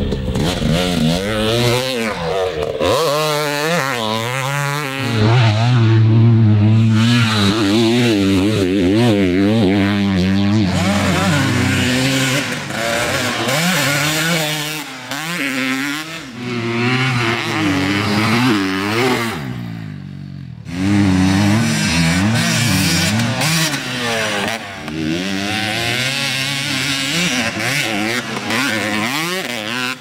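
Dirt bike engine being ridden hard, its pitch rising and falling again and again with throttle and gear changes. It drops away briefly about twenty seconds in, then comes back on throttle.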